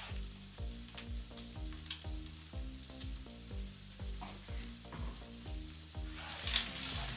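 Pork frying in a pan with a soft, steady sizzle, under quiet background music with a regular low beat. About six seconds in, the meat is stirred and the sizzle gets much louder.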